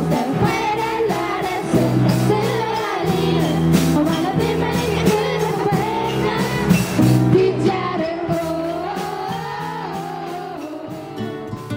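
A children's school band playing a pop-rock song live: young voices singing together over a drum kit, electric guitar and keyboards. The music grows quieter toward the end.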